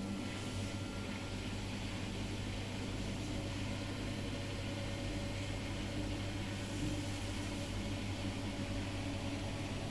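Samsung WW80R421HFX/LE washing machine running with a steady hum.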